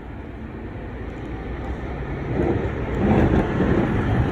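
NYC garbage truck driving by, its diesel engine rumble growing louder from about two seconds in as it draws near.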